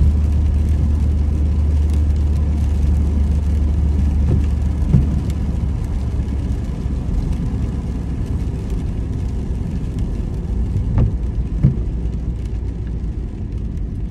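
Road noise inside a car's cabin while driving on a wet road: a steady low rumble that eases off gradually over the second half, with a few brief knocks about five seconds in and again near eleven and twelve seconds.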